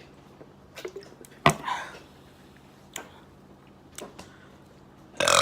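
Close-up eating sounds: a few sharp mouth clicks and smacks, one much louder about a second and a half in. Near the end a loud burp begins.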